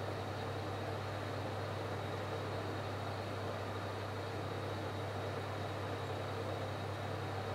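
A steady low machine hum with a faint high whine above it, unchanging throughout.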